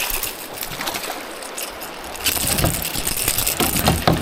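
Fishing reel being cranked to bring in a hooked bass, with many short clicks and water splashing, louder from about two seconds in.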